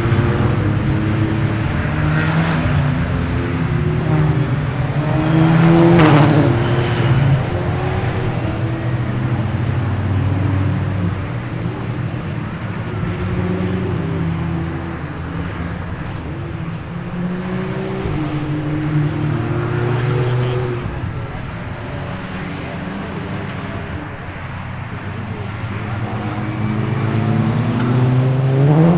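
A line of race cars drives past at formation-lap pace, with several engines overlapping at moderate revs. One car passes close about six seconds in, its note dropping as it goes by, and another approaches with a rising note near the end.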